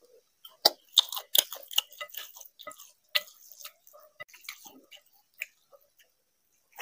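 Close-miked chewing of rice and curry eaten by hand, with sharp wet smacking clicks of the lips and mouth. They come thickly for about the first two seconds, then thin out and grow quieter.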